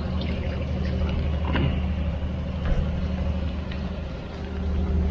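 Steady low engine hum of a large vehicle running nearby, with no clear change in pitch.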